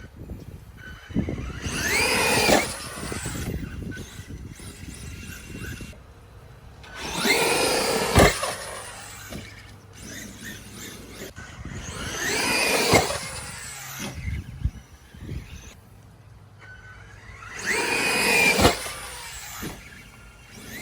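Traxxas E-Revo electric RC truck making four high-speed runs about five seconds apart, its motor whine rising and then falling in pitch each time, most runs ending in a sharp knock as the truck lands.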